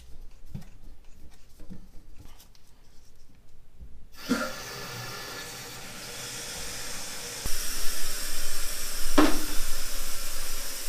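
Light clicks of the toilet's braided supply line being fastened. About four seconds in, a sudden steady hiss starts as the shutoff valve is opened and water rushes through the tank's fill valve to refill it; the hiss gets louder a few seconds later, with a knock near the end.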